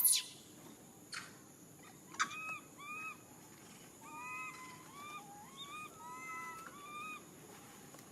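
Baby monkey crying in distress, as an infant separated from its mother: a sharp shriek at the start and another about a second in, then a run of about a dozen short, high, arched whimpering calls until near the end.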